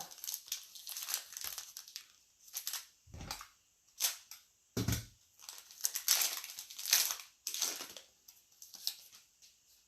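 Crinkling and rustling of a foil trading-card pack wrapper being torn open and the cards handled, in irregular bursts, with two short dull thumps about 3 and 5 seconds in.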